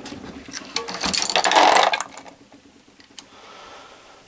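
Progressive reloading press being cycled to seat and crimp 5.56 bullets: a few metallic clicks, then a louder clanking, rattling stroke of the ram and indexing shell plate for about a second, and one more light click later on.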